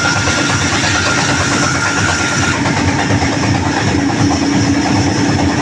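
Sawmill machinery running steadily with a loud, continuous mechanical din; a faint high whine drops out about halfway through.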